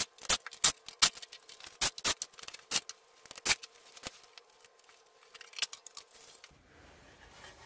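Ratchet and socket clicking as the valve cover bolts come out of a Chrysler Slant Six's cylinder head: sharp, irregular clicks a few times a second, stopping about four seconds in. Fainter knocks follow as the valve cover is lifted off.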